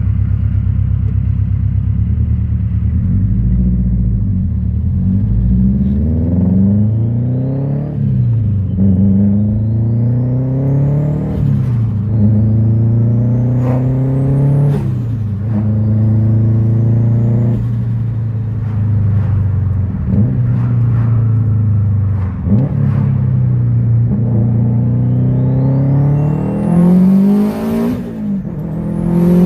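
Subaru Impreza STI's turbocharged flat-four engine pulling hard through the gears. Its pitch climbs and drops sharply at each of several upshifts, with a high turbo whistle that rises during each pull. The turbo flutters as the throttle closes on each shift.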